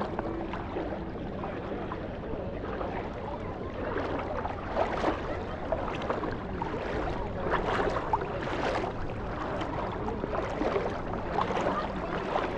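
Beach ambience: seawater washing and splashing in an unbroken noisy wash, with a few stronger surges.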